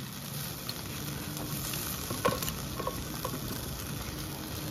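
Soft wet clicks of marinated paneer and vegetable pieces being pushed onto a metal skewer, over a steady hiss.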